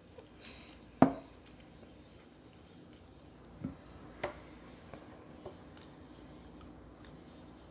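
Close-miked mouth sounds of someone chewing a soft scallop: a few short wet smacks and clicks, the sharpest about a second in, with fainter ones after.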